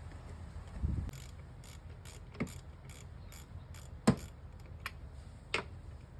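Sharp metallic clicks and knocks of hand-tool work on car parts, scattered a second or so apart, with a dull thump about a second in and the loudest click about four seconds in.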